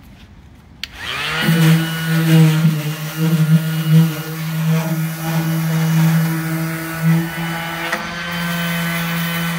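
Ryobi random orbital sander with a 180-grit disc, switched on with a click about a second in and spinning up quickly to a steady whine. It then sands rust off sheet steel, its loudness wavering as it is pressed against the metal.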